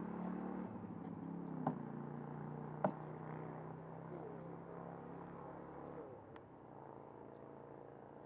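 Honeybees from an opened hive humming steadily, fading about six seconds in, with a few sharp knocks from the wooden hive frames being handled.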